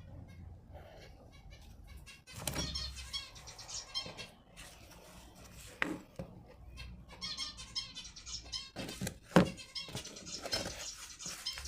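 Irregular clicks, scrapes and rattles of plastic and metal parts being handled and pried apart, with a few sharp knocks, as a car's air-intake control flap is taken apart.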